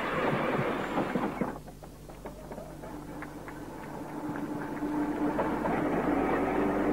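Train running on rails: loud clattering of wheels that drops away suddenly about a second and a half in. Then come quieter rail clicks and a steady hum that grows louder toward the end.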